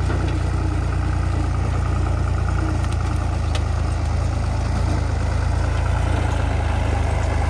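Fiat 480 tractor's three-cylinder diesel engine running steadily with a deep, even hum while pulling a disc harrow through the soil.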